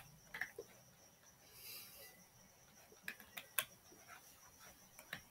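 Near silence broken by a few faint computer-mouse clicks: two about half a second in, a quick cluster of four around three seconds in, and one more just before the end.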